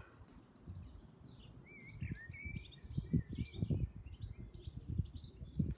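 Small songbirds chirping and warbling in quick phrases, over irregular low rumbles.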